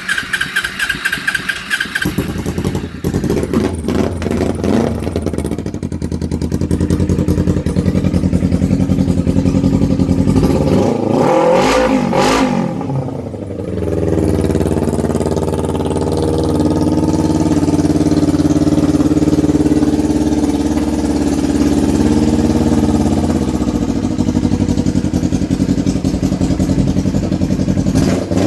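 Kawasaki EX250's parallel-twin engine cranked on the electric starter, catching about two seconds in and running loud with no exhaust fitted. The revs rise and fall once around the middle, then it settles into a steady run and idle.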